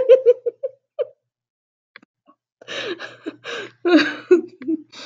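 A woman's quiet, uncontrollable laughter in short breathy pulses: one run trails off within the first second, and after a pause a second run of gasping laughs starts about two and a half seconds in.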